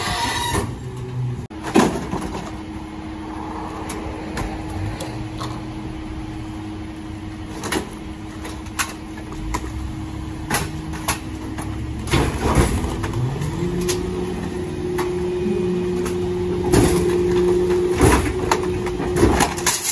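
Loadmaster rear-loader garbage truck running at the curb, its engine pitch stepping up about 13 seconds in as it speeds up. Repeated clattering knocks as bulk items are thrown into the hopper.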